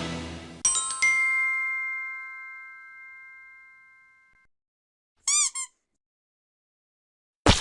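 Stock sound effects: a bright bell-like ding that rings and slowly fades over about three seconds, then after a pause a short warbling cartoon chirp, and a sharp hit near the end.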